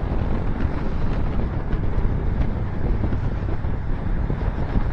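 Wind buffeting the microphone of a motorcycle cruising at highway speed, with the Suzuki SV650's V-twin engine and road noise running steadily underneath.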